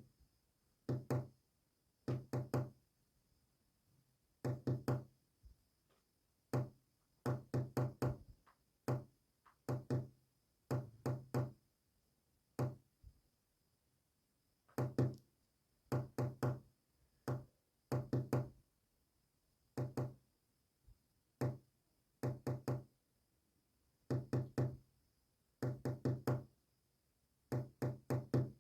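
Morse code sent as short low knocks, coming in groups of one to four with pauses between the groups.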